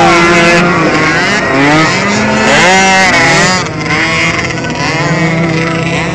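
Several motocross race engines revving on the track together, their pitches climbing and dropping as the riders accelerate and shift.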